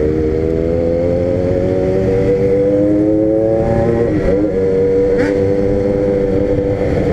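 Motorcycle engine pulling in gear, its pitch rising steadily, then dipping briefly at a gear change about four seconds in before running on steady, over a low rush of wind noise.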